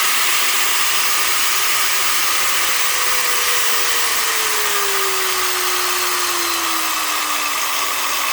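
DCA ASM10-100 variable-speed angle grinder running, its brushed motor and cooling fan giving a steady airy hiss with a whine. About two seconds in, the whine starts falling slowly in pitch and keeps dropping.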